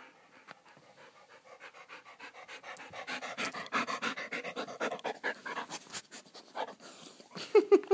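Dog panting rapidly, heavier through the middle. Near the end come two or three short pitched cries, the loudest sounds here.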